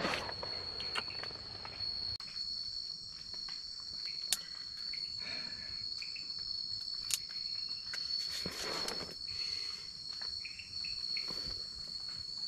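Night insects calling in one steady high-pitched drone, with a few soft rustles and clicks.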